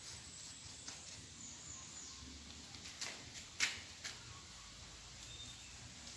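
Faint brushing and scraping of a paintbrush working glossy sealer onto bricks, with a few light sharp taps; the loudest tap comes a little past halfway.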